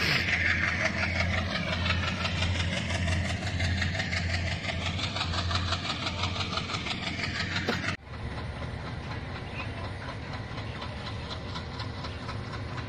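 A passenger train's engine running steadily while the train stands at a station. About eight seconds in the sound cuts abruptly to a quieter steady hum.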